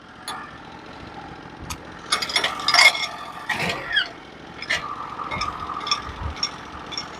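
Portable bandsaw mill being set to cutting height: mechanical clicking and rattling from the head-setting mechanism, with a short squeaky chirp about four seconds in.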